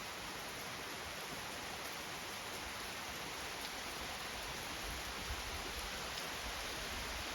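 Steady rain falling outdoors, an even hiss with no let-up.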